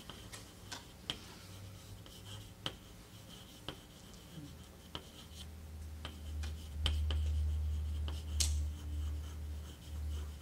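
Quiet room with scattered small clicks and light rubbing of pens and paper being handled, and a low hum that grows louder about halfway through.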